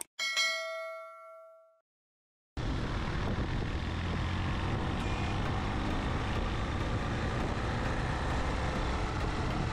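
A click and a bell-like notification ding from a subscribe-button animation, ringing out and fading over about two seconds. After a short silence, steady road and wind noise of a vehicle riding along a paved road sets in.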